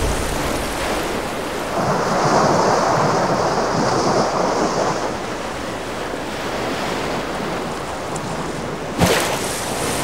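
Rough sea surf breaking on a beach, a steady rush of waves. The rush swells about two seconds in, and a sudden louder surge comes near the end.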